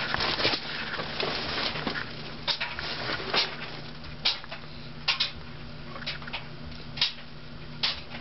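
Early-1980s Lasko 52-inch ceiling fan running at medium speed, its motor giving a constant low hum, with a sharp tick recurring about once a second.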